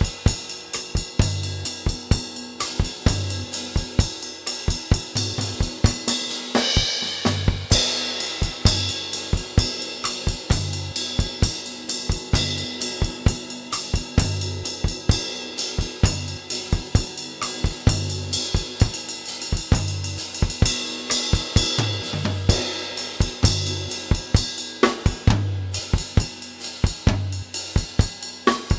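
Acoustic drum kit played in a steady groove: kick drum, snare and hi-hat, with cymbal crashes at the busier moments.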